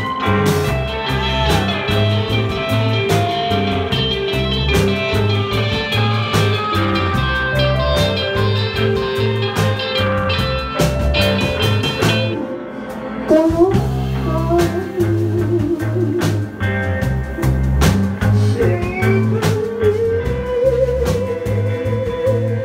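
Live band playing: electric guitar, bass guitar and drum kit, with a short drop-out about twelve seconds in before the band comes back in.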